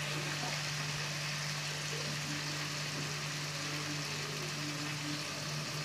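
Garlic, shallots and tomato sizzling steadily in oil in an aluminium kadai, with freshly added curry leaves on top, over a steady low hum.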